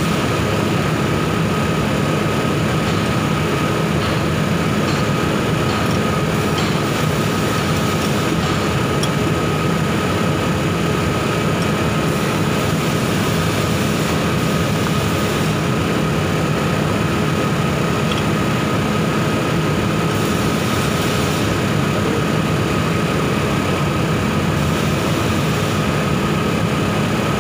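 Steady mechanical drone with a constant high whine over a low hum, unchanging throughout.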